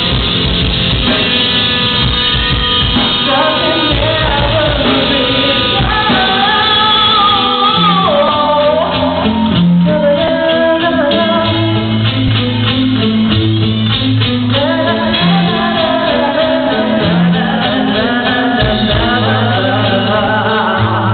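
Live rock band playing with a singer, the sung melody moving over sustained bass notes and drums.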